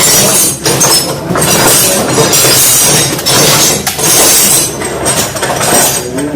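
Loud metallic clattering and scraping of hand tools and metal parts, coming in uneven bursts of about a second with a high metallic ring.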